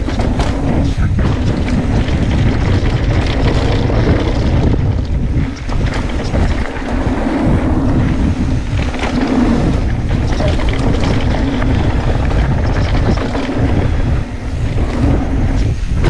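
Wind buffeting a GoPro action camera's microphone during a fast mountain-bike ride, with a steady low rumble of tyres on dirt and frequent knocks and rattles from the bike going over bumps.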